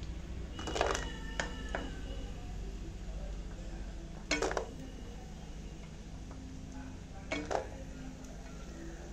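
A metal spoon clinking and scraping against a frying pan and plate in three short bursts, about a second in, near the middle and about three-quarters through, some strikes ringing briefly, as fried mutton pieces are lifted out and set on the plate. A steady low hum runs underneath.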